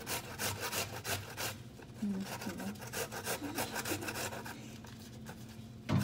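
A vegetable being shredded on a metal box grater: rasping strokes, about three a second, quieter near the end.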